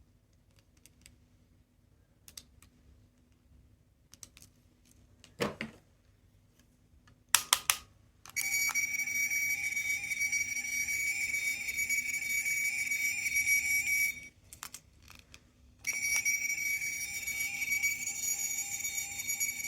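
Sound-making capsule toy playing a steady, high-pitched electronic sound through its tiny speaker for about six seconds, stopping briefly and then starting again. Small clicks and a knock from the toy being handled come before it.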